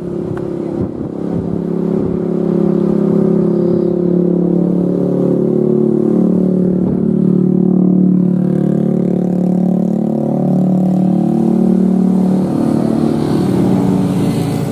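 Diesel engine of a rail track-maintenance machine running steadily under load, its pitch shifting up and down.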